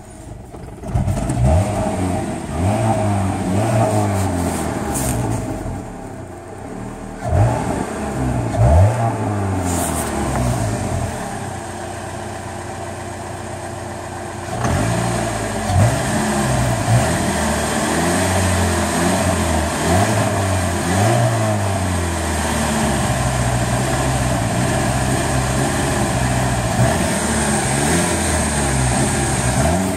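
Pontiac Sunfire's 2.2 L Ecotec four-cylinder running rough, its revs surging and sagging unevenly instead of holding a steady idle. This is a misfiring engine starved by sugar in the fuel tank. It gets louder about halfway through.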